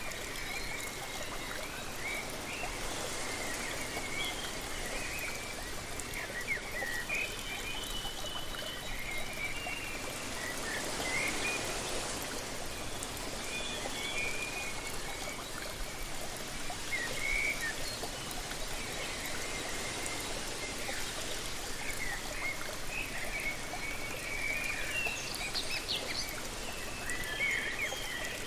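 Steady rush of a waterfall, with small birds chirping in short high calls again and again over it. The rushing swells a little around the middle, like a gust of breeze.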